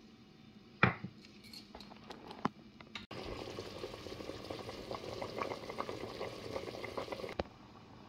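A sharp knock about a second in, then about four seconds of dense crackling and splashing from a steel pot of boiling spiced stock as raw rice goes in; it cuts off suddenly.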